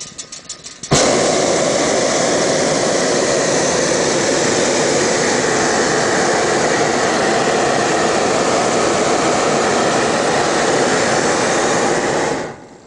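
Hot-air balloon's propane burner firing in one long, loud blast, starting suddenly about a second in and cutting off near the end.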